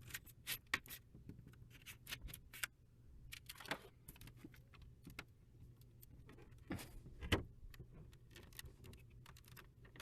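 Quiet, irregular small clicks and light metallic taps of parts and tools being handled while unscrewing a fitting, with a few sharper knocks.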